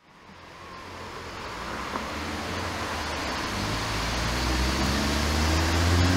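Narrow-gauge steam tank locomotive 99 1781-6 approaching slowly along the station track. A low rumble and hiss fade in and grow steadily louder.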